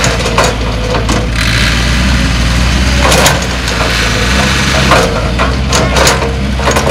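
CAT 312B tracked excavator's diesel engine running steadily while it loads soil into a small dump truck. Several clunks and thuds sound as the bucket works over the truck bed and soil drops in.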